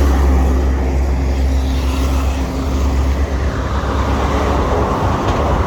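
Steady low engine rumble that eases off about three seconds in, giving way to a broader wash of outdoor traffic noise.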